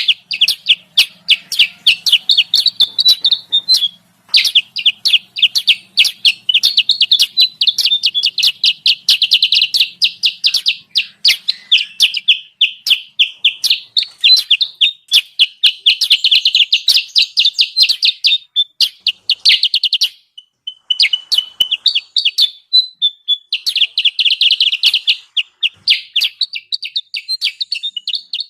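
Kutilang sutra lure call: long runs of rapid, sharp high chirps, several a second, broken by brief pauses about four and twenty seconds in. This is the busy chattering call used to draw wild kutilang sutra down to a trap.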